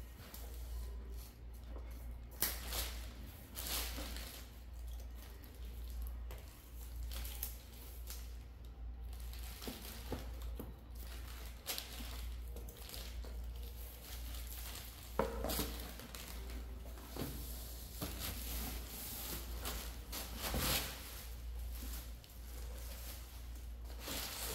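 Plastic wrapping crinkling and tearing as scissors are worked at the shrink-wrap on a boxed merchandise set, with cardboard boxes sliding and knocking against each other in a carton packed with plastic air pillows. Irregular rustling throughout, broken by a few sharper knocks.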